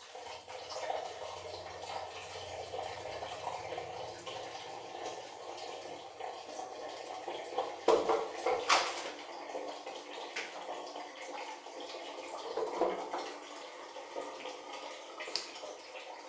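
Water running steadily in a small tiled bathroom, with a few sharp knocks about eight seconds in.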